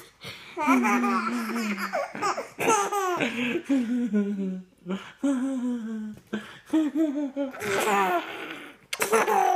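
A baby, almost five months old, laughing out loud in about six bouts with short breaks between them.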